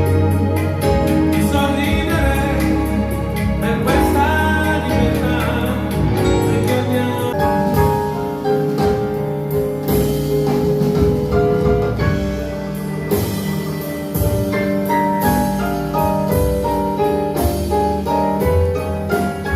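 A song with a sung vocal over keyboards and drums, played back through a pair of IKEA Eneby stereo speakers. The singing is clearest in the first several seconds, then sustained instrumental notes carry on.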